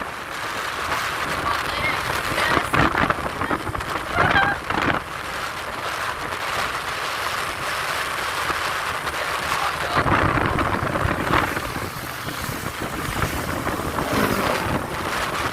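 Road traffic noise with wind buffeting the microphone and a few brief voices; a low rumble swells about ten seconds in. No bus horn is sounding.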